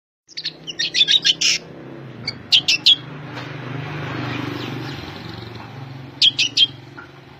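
A songbird chirping in three quick bursts of sharp, high notes, over a steady low hum.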